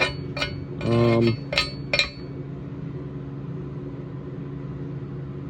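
A few light metallic clinks in the first two seconds as steel weld plates are handled, then a steady low hum.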